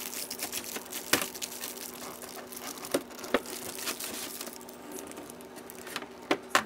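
Crinkling and crackling of thin plastic packaging as a hand pulls small bagged parts out of a clear plastic blister tray, in irregular sharp crackles, the loudest about a second in and around three seconds in.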